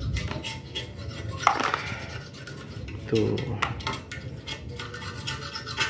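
Small metal parts clinking and scraping: broken pieces of a Toyota 2AZ-FE balancer shaft gear, its teeth stripped, knocking against the oily balancer housing as they are handled. There are many light clinks, with a brighter one about a second and a half in.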